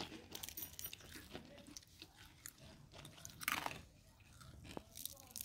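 Faint crackly crunching of crisp, freshly fried onion pakoras being broken and eaten, with a louder crunch about three and a half seconds in.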